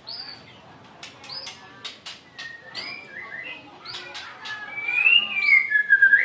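White-rumped shama singing in an agitated mood: short downward-sweeping whistles mixed with sharp clicks, and a louder whistled note that rises and falls about five seconds in.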